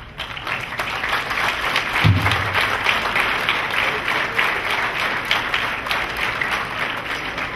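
Large audience applauding: many hands clapping, swelling over the first two seconds and then holding steady.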